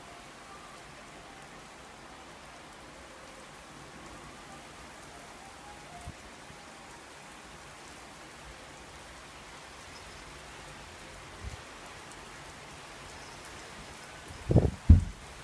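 Steady rain falling in a thunderstorm, with two short, loud low thumps close together near the end.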